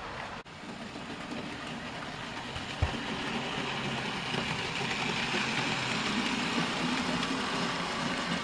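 00 gauge model goods train running on the layout's track, its wheels and motor making a steady rumbling run that grows louder as the train approaches. One brief knock about three seconds in.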